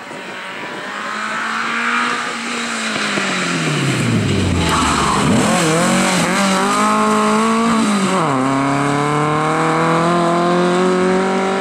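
Volkswagen Beetle rally car's air-cooled flat-four engine slowing for a corner, its note falling, then accelerating hard away, the pitch climbing through the gears with shifts about five and eight seconds in.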